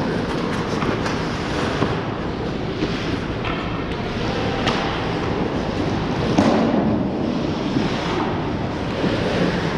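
Ice hockey play on a rink: a steady wash of skates scraping the ice, broken by a few sharp clacks of sticks, puck or boards.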